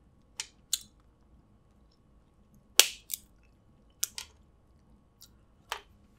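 Close-up eating sounds while picking at snow crab legs: about seven sharp, irregular clicks and cracks, the loudest about three seconds in.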